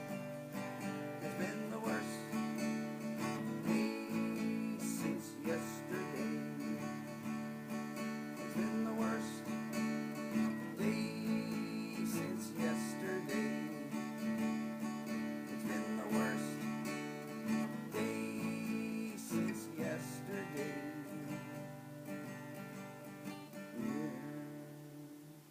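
Acoustic guitar strumming chords through a song's closing instrumental bars, dying away near the end as the last chord rings out.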